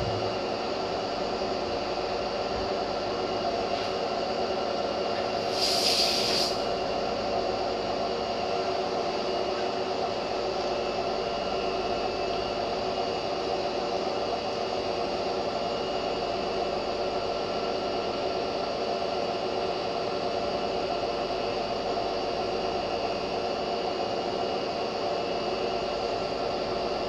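Hotpoint front-loading washing machine running steadily at the end of its wash cycle, a constant hum of machine noise, with a brief hiss about six seconds in.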